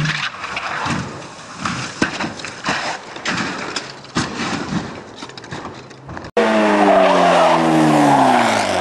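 Rally car sliding on tarmac, a rough skidding hiss broken by several sharp knocks. After a hard cut about six seconds in comes a single-seater racing car's engine running loud, its pitch falling steadily as the car goes by.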